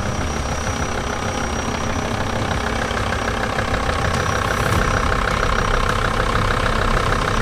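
VW T4 Syncro van's engine running steadily at low revs while the van drives down an off-road track, getting slightly louder in the second half.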